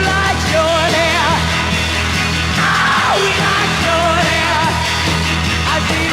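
1960s garage rock record playing: a full band with steady bass, wavering lead lines over it and no clear sung words.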